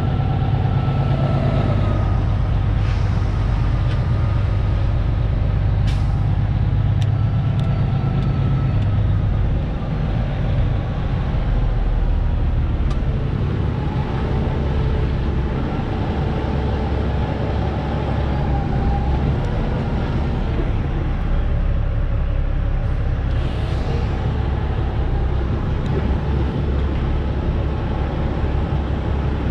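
Semi-truck diesel engine running at low speed as the truck is backed up to a loading dock; the engine note changes and drops slightly about ten seconds in. A short air hiss comes about two-thirds of the way through.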